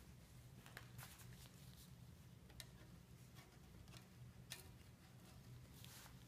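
A few faint, scattered clicks and light scrapes of a thin metal blade against lifting brass marquetry as it is worked free from the veneer, over a low steady hum.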